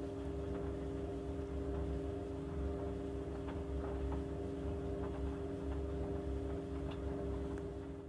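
White Knight 37AW tumble dryer running, its motor and turning drum giving a steady hum and low rumble with a few faint ticks. It runs without its old grinding noise, the worn drum felt having been replaced.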